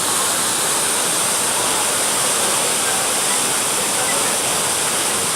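Telun Berasap waterfall pouring: a loud, steady rush of falling water.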